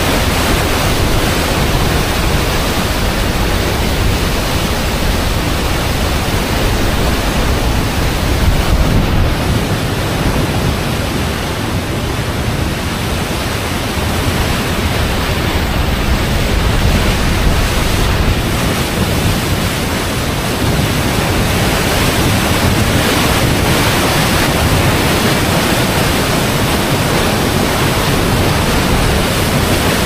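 High Force waterfall on the River Tees in spate: loud, steady rushing of heavy water plunging over the rock face and churning in the pool below.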